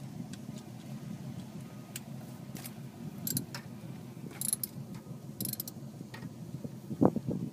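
Socket ratchet on a deep spark-plug socket turning a spark plug, clicking in several short bursts, with a few knocks of tools near the end.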